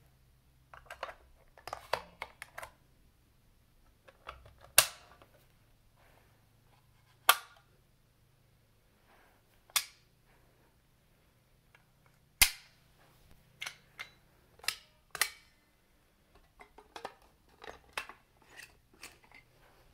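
Fire alarm manual pull stations being pulled one after another: each handle snaps down with a sharp click, the loudest coming about every two to three seconds, with smaller clicks and rattles from handling the stations in between.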